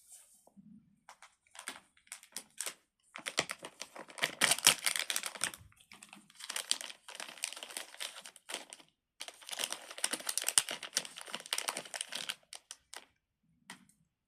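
Plastic crinkling and crackling as it is handled, in long dense stretches broken by short pauses, with a few lone clicks near the start and end.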